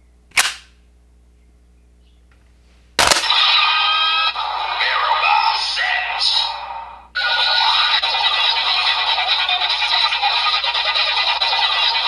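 A click, then about three seconds in a Kamen Rider Geats transformation toy starts playing its electronic sound effects and music through its small speaker. The sound briefly dips out near seven seconds and comes back.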